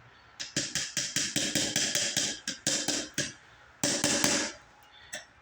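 Hammer blows driving a bearing race into a steel wheel hub: a run of sharp taps at about three or four a second, then a quick cluster of blows about four seconds in.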